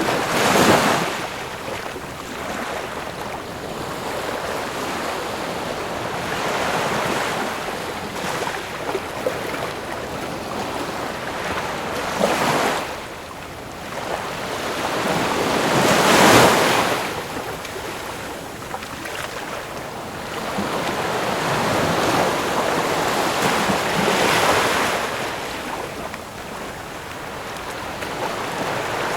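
Ocean waves breaking on the shore: a steady wash of surf that swells and falls, with waves crashing loudly just after the start, twice around the middle and once more near the end.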